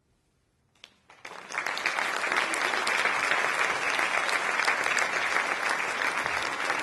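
Live audience applauding after a song: near silence, then clapping starts about a second in and builds quickly to steady applause.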